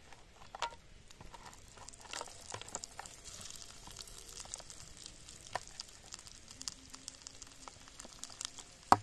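Small salted fish frying in hot oil in a pan: a steady sizzle with scattered crackles and spits, which builds up about two seconds in. A sharp tap near the start and a louder knock near the end.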